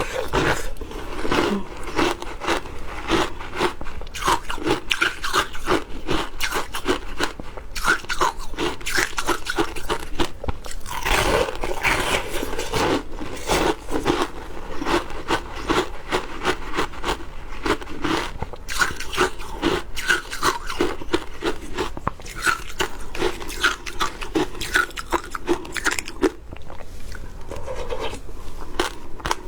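Shaved ice being bitten and chewed close to the microphone: dense, rapid crunching and crackling of frozen ice in the mouth.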